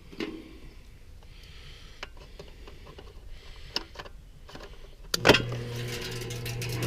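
Light handling clicks, then a loud clunk about five seconds in as the pull-out disconnect is pushed back into its box at a York condensing unit, and the unit powers up with a steady electrical hum. The compressor does not start.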